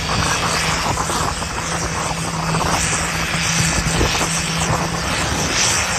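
Large engine running hard at high revs, loud and steady with a constant drone that stops about five seconds in.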